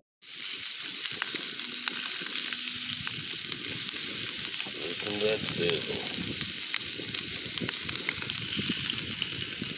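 Sausage patties frying in a nonstick skillet on a charcoal grill: a steady sizzle with fine crackling.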